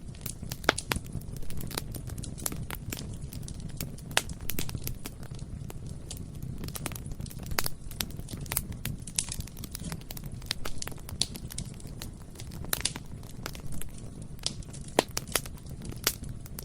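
Bonfire burning: a steady low rumble of flame with frequent sharp crackles and pops of burning wood at irregular intervals.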